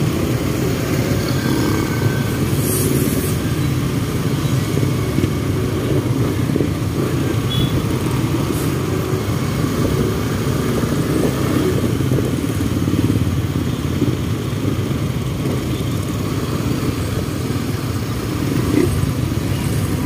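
Motorcycle and motorcycle-tricycle engines running in slow, congested road traffic: a steady low drone.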